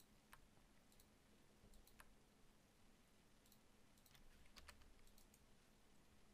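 Faint, irregular clicks of a computer mouse and keyboard, a dozen or so scattered over near-silent room tone.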